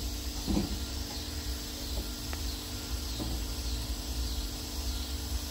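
A large off-road tire is shifted against a spare-tire rack, giving a light knock about two seconds in, over a steady low rumble and insects chirring.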